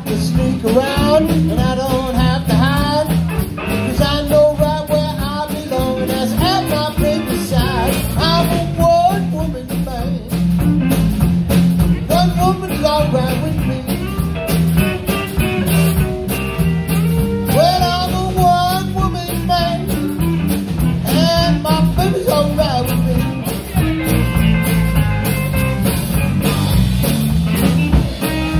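Live blues band playing: a male singer's voice over electric guitar, bass guitar and drum kit.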